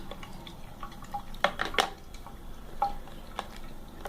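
A phone being handled in a porcelain bathroom sink after the tap is off: a handful of light, separate clicks and knocks.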